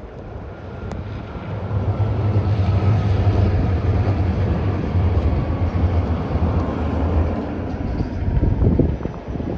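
A motor vehicle driving past, its low engine and tyre rumble building over the first couple of seconds, holding, then fading near the end.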